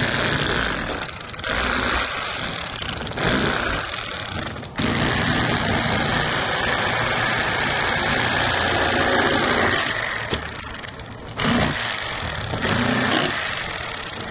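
Electric fillet knife running as it cuts a fillet off a crappie. It is switched off and on several times, with one unbroken run of about five seconds in the middle.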